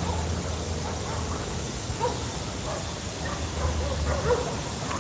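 Dogs barking, a few faint scattered barks over a steady hiss.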